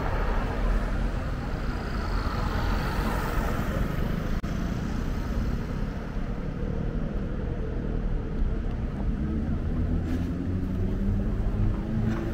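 City street traffic: a steady rumble of cars and other vehicles on the road, with one vehicle's engine rising in pitch as it speeds up near the end.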